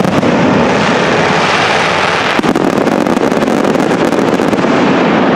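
Fireworks shells bursting overhead, a dense continuous rush of crackling that thins out after about four and a half seconds.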